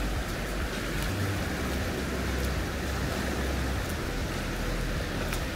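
Steady rush of water, with wind rumbling on the microphone.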